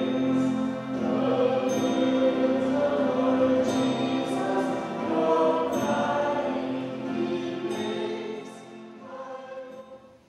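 A choir of voices singing together in held, sustained notes. The singing dies away near the end.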